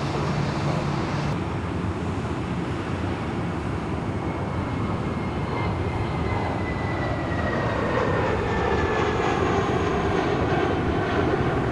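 Jet engines of a JetBlue Airbus A320 climbing out after takeoff: steady jet noise with a whine that slowly falls in pitch, growing louder in the last few seconds. The sound changes abruptly about a second in, where another departing jet's engine noise is cut off.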